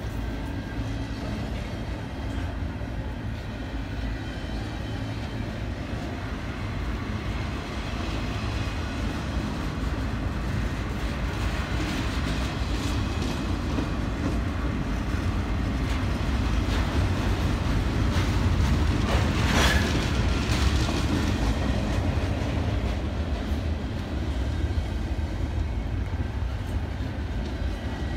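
Double-stack intermodal train of well cars rolling past at steady speed: a continuous low rumble of wheels on rail with some clickety-clack, growing a little louder in the middle. A brief louder burst of noise stands out about two-thirds of the way through.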